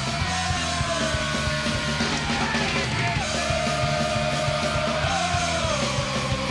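Anaheim Ducks goal song: loud punk rock music with singing over a driving beat.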